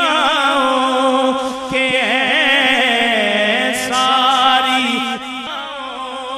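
Unaccompanied male voice singing a naat (Urdu devotional verse in praise of the Prophet), drawing out long, ornamented notes with heavy vibrato. The voice eases off in loudness about five seconds in.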